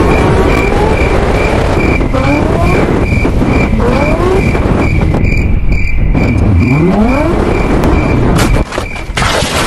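Sport motorcycle engine revving hard under acceleration, its pitch climbing and dropping back several times as it shifts up, with heavy wind rush over the helmet microphone. A faint high beep repeats about three times a second. Near the end the engine note drops off and a short burst of hiss follows.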